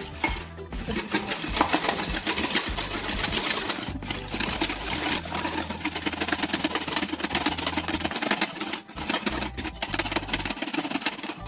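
Electric hand mixer beating eggs, sugar and vanilla into a cake batter, running steadily with a few brief breaks.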